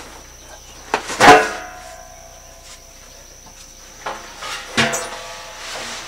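Knocks and scrapes as a large cardboard box holding concrete mixer parts is tipped and shifted, the heaviest bump about a second in ringing on briefly, with another cluster of knocks near the end.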